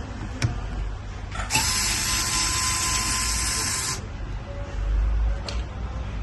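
Small electric screwdriver whirring steadily for about two and a half seconds, then stopping abruptly. A few light clicks come before it.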